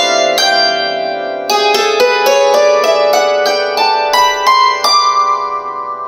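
Secret Sound 12/12 SL hammered dulcimer struck with wooden hammers, playing a tune of single ringing notes. After a short pause near the start comes a run of about three notes a second, and the last notes are left to ring out near the end.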